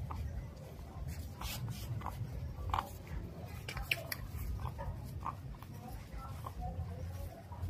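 Puppies suckling at their mother's teats: a busy run of small wet sucking and smacking clicks, with a few faint squeaks, over a steady low rumble.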